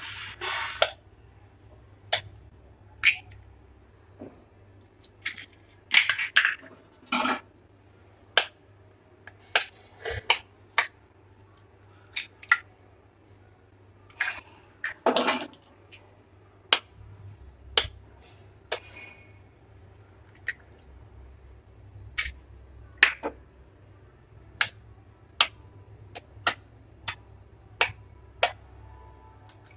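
Eggs tapped against the rim of a glass bowl and cracked open: a string of sharp taps and clicks, about one a second, with a few longer cracks. A faint low hum runs underneath.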